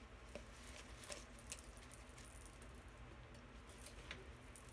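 Faint handling sounds of foam hair rollers being unclipped and pulled out of dreadlocks: a few light scattered clicks over a low steady room hum.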